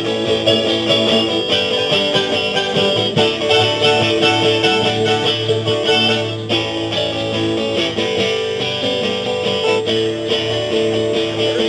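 Instrumental break of a country song played live by a small band, led by picked acoustic guitar and other plucked strings.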